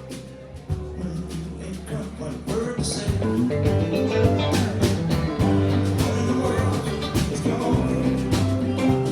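Band music in a country-rock style, with guitar and bass, growing louder about three seconds in.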